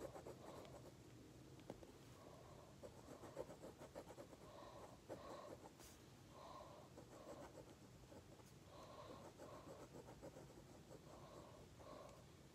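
Faint scratching of a pencil tip on paper, making short, irregular hatching strokes while shading a sketch.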